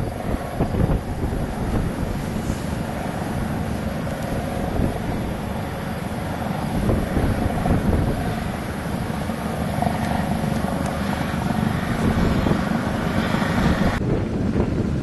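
Gusty wind buffeting the microphone outdoors during a storm, with a faint steady hum underneath. The sound changes abruptly near the end.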